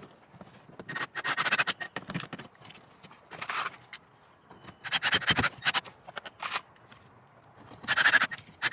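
Cordless screwdriver driving pocket-hole screws into half-inch plywood framing, in several short bursts of a second or less with pauses between them.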